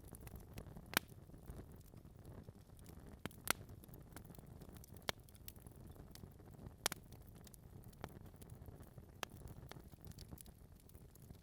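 Wood fire burning in a fireplace: a low steady rumble with sharp, irregular pops and crackles from the logs, the loudest about a second in, near 3.5 s, 5 s, 7 s and 9 s.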